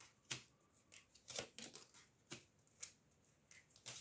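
Tarot cards being handled and laid out on a table: a few faint, irregular crisp card flicks and taps.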